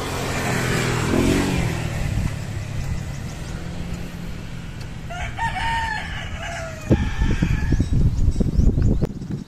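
A rooster crows once, about five seconds in. Near the end comes a loud run of knocks and thumps from hands working stainless tie wire around the tool tube and bracket. A low rumble is heard in the first two seconds.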